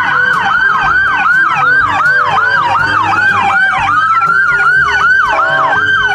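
Electronic police-style siren: a fast falling yelp that repeats about three times a second, with a slower wail gliding down underneath. About four seconds in it briefly changes to a long held tone, then the yelp resumes.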